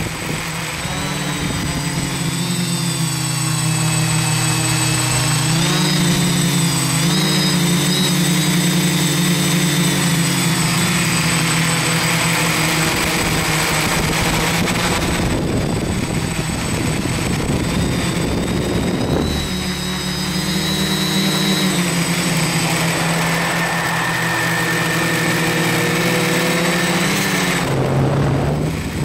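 Quadcopter's electric motors and propellers running in flight: a steady buzz whose pitch rises and falls with the throttle, over a thin, constant high whine. The sound dips briefly a few times as the throttle is cut back.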